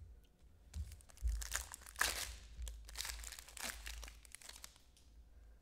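Plastic wrapper of a trading-card pack crinkling and rustling in the hands as it is opened, in a run of short scratchy rustles that die away near the end.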